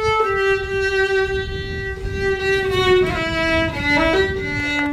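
Background music: a fiddle playing a slow tune, one long held note for most of the time, then stepping down through a few shorter lower notes near the end.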